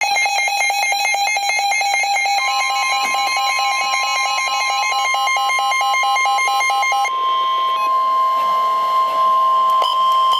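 Electronic weather-alert alarm: a rapid pulsing beep, about five beeps a second, that stops about seven seconds in, overlapped from about two seconds in by the steady 1050 Hz NOAA Weather Radio warning alarm tone, which holds on unbroken and signals that a warning message follows.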